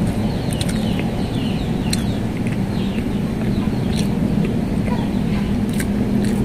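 Close-up chewing of soft cake, with small wet mouth clicks. Behind it runs a steady low hum, and birds chirp over and over in short falling calls.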